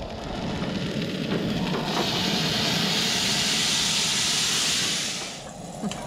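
Steady sizzling hiss from a hot cast-iron skillet on a propane camp stove, starting about two seconds in and cutting off shortly before the end.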